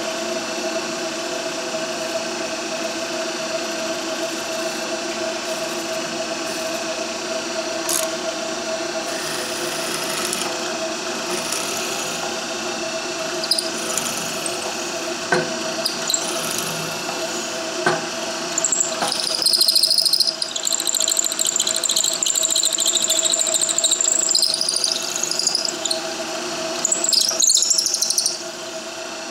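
Clausing drill press running with a steady hum while a 15/64-inch twist bit bores deep into a wooden block. About two-thirds of the way through, as the bit goes deeper, a loud high-pitched squeal sets in and carries on, rising and falling in pitch.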